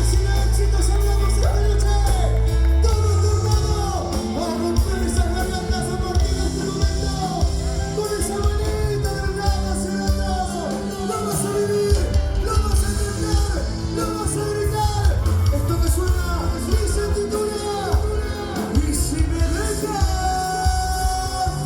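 Live band music: a song played with a heavy bass line and a melodic lead over it.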